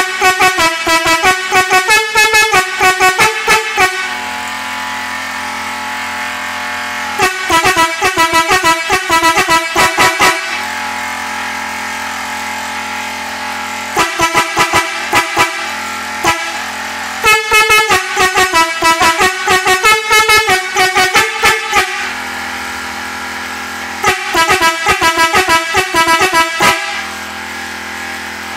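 Eight-melody musical air horn playing quick tunes in five short phrases of rapid notes, with a steady low hum in the pauses between them.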